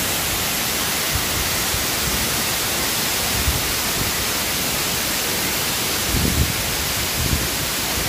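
Steady, even rush of a tall waterfall, the Queda do Meu Deus, pouring down a rock face into its pool. A couple of brief low thumps come about six and seven seconds in.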